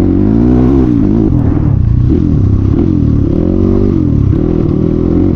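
CX250R motorcycle running loud with the dB killer removed from its exhaust while being ridden, the engine note rising and falling with the throttle several times.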